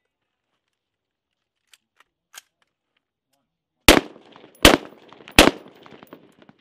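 Three rifle shots fired at a steady pace, about three-quarters of a second apart, starting about four seconds in. Before them, a few faint clicks of the rifle being handled.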